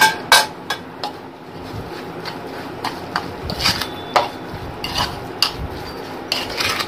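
Mixing a thick, oiled green masala in a ceramic bowl: a few sharp clinks of a spoon against the bowl near the start, then scattered smaller clicks and soft scraping as the mixing goes on.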